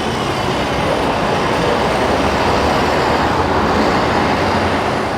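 Loud, steady noise of city street traffic, with no break in it.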